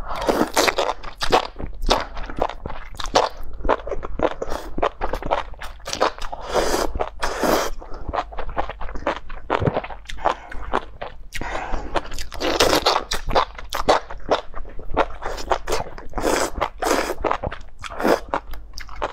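Close-miked slurping and chewing of spicy enoki mushrooms in chili broth: rapid wet smacks and crunchy bites, with several longer slurps of the strands.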